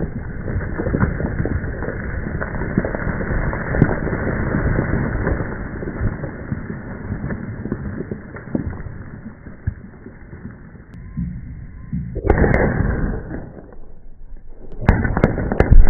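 The aftermath of a multi-hole rock blast in granite: a noisy rumble with scattered knocks of falling rock and debris, fading over about ten seconds. It jumps back up abruptly about twelve seconds in, drops away, and comes back loud again near the end.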